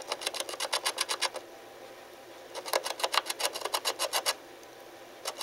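A small animal scratching and digging inside a wall, in rapid bursts of about ten strokes a second. Two bursts of about a second and a half each, with a pause between, and a third starts near the end.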